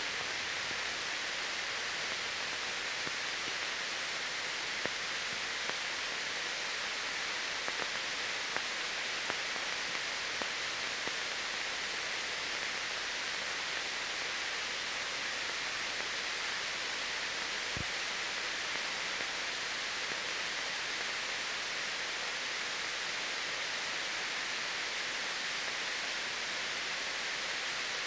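Steady, even hiss of an old film soundtrack, with no other sound apart from a faint tick or two.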